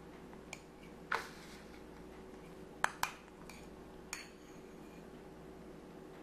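Metal teaspoon clinking and scraping against a glass bowl of melted dark chocolate: about five light, separate clinks, two of them close together near the middle.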